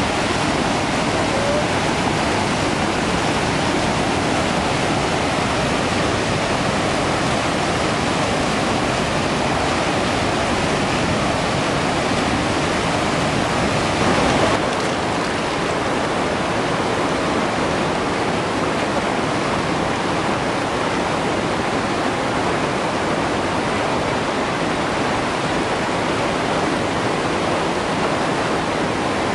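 Whitewater rapids of a swollen, muddy river rushing, a loud steady noise with a brief louder bump about halfway through.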